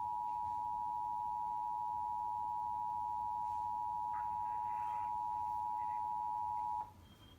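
Emergency Alert System attention signal: the two-tone 853 and 960 Hz alert tone, held steady and cutting off abruptly near the end.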